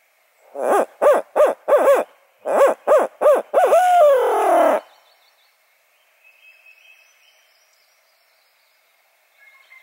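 Barred owl hoot, loud and close, as a turkey hunter's locator call: two phrases of hoots in the 'who cooks for you, who cooks for you-all' rhythm, the last note drawn out and falling. It is called to shock a turkey into gobbling.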